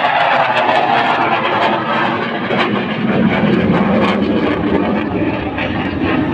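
Military fighter jet's engine noise overhead, a broad rush whose pitch falls over the first few seconds as the jet passes.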